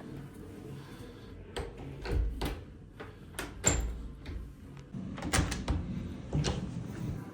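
A door being handled: a run of separate clunks and knocks, the loudest about three and a half seconds in, with a quick cluster of them around five and a half seconds.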